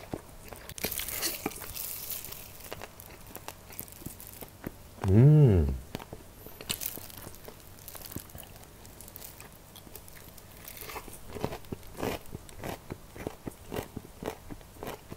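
Close-miked crunching and chewing of crispy fried chicken: irregular crackly bites and chews. About five seconds in there is one short, loud hummed "mm" from the eater, rising and then falling in pitch, the loudest sound in the stretch.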